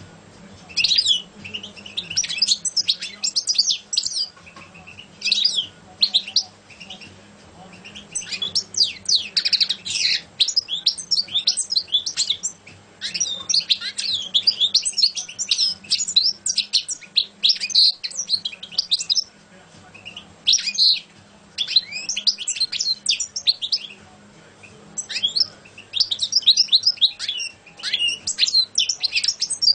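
European goldfinch singing: fast, twittering phrases in bouts of a few seconds, broken by short pauses.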